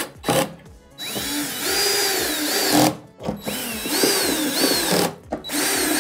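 Power drill driving screws into a TV stand base, in three runs of about one and a half to two seconds each with brief blips and short stops between them, its pitch rising and falling.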